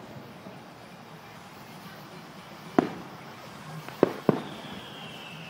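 Fireworks bursting: three sharp bangs, one about three seconds in and two in quick succession about a second later, each with a short echo. A thin whistle then slides slowly down in pitch to the end.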